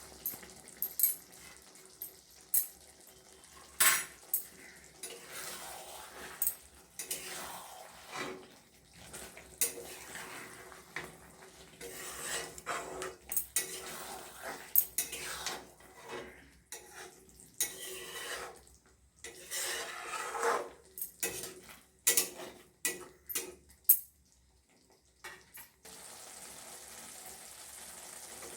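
A metal spoon stirring curry in a kadhai, clinking and scraping against the pan in irregular strokes as coriander leaves are mixed in. The stirring pauses briefly near the end.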